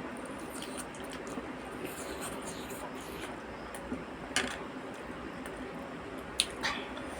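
A person chewing food quietly, with a few small clicks about four seconds in and again near the end.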